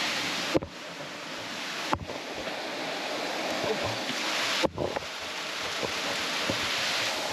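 Waterfall pouring steadily, a constant rush of falling water, with three short knocks: one about half a second in, one at two seconds and one near five seconds.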